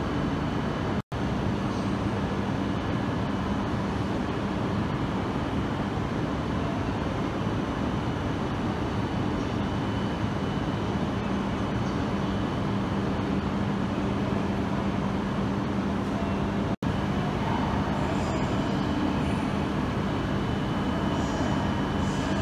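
Steady hum and whir of a standing E5 series shinkansen train and the platform around it, with a low hum running underneath. The sound drops out for an instant twice, once about a second in and again near the end, where the footage is cut.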